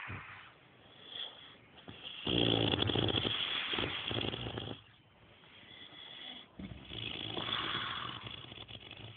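A person snoring in deep sleep: two long snores about four seconds apart, with quieter breathing between them.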